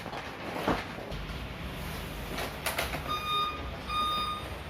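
Electronic beeping, a high tone repeating a little more than once a second, starting about three seconds in over a low background rumble.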